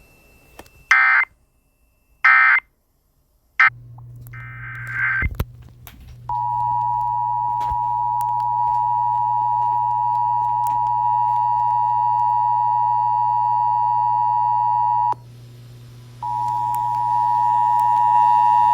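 Emergency Alert System signalling: three short screeching digital data bursts, then a longer burst, then the long steady two-tone attention signal. The tone cuts off, and after about a second it starts again under a low steady hum.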